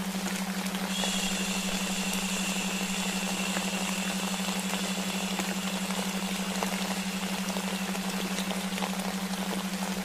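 Layered sleep-noise track: a steady low delta-wave hum under an even rain-like white-noise hiss with scattered faint drop clicks. A faint high whine comes in about a second in and fades near the end.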